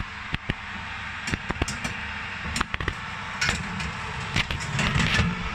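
Clatter of sharp clicks and knocks from a baking tray being put into an oven and the oven being closed and set, over a steady hum.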